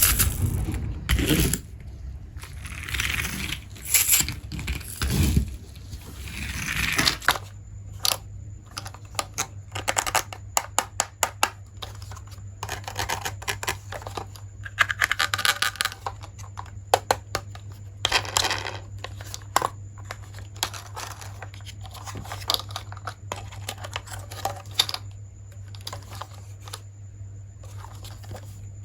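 Plastic packaging rustling and tearing, then many sharp clicks and taps of plastic toy pieces being handled and fitted together, over a steady low hum.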